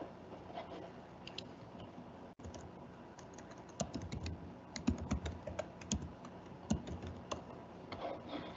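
Irregular keystrokes and clicks on a computer keyboard, thickest in the middle, over a faint steady hum.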